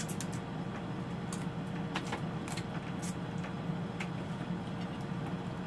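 Scattered short, sharp clicks and cracks of crab shells being broken and picked apart by hand while eating, over a steady low hum.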